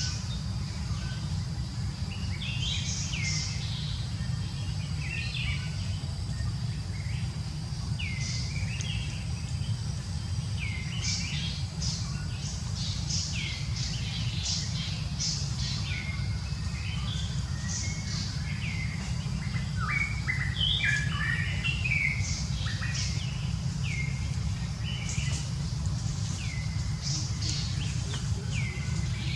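Repeated short, high chirping calls, many sweeping downward, over a steady low rumble.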